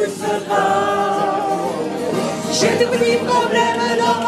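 A mixed group of amateur voices singing a song together, holding long notes.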